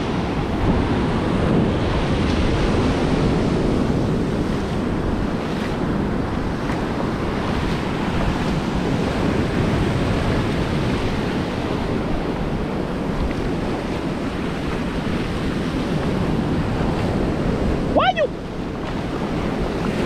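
Ocean surf breaking and washing up over the sand in a steady rush, with wind buffeting the microphone. A short high-pitched call rings out near the end.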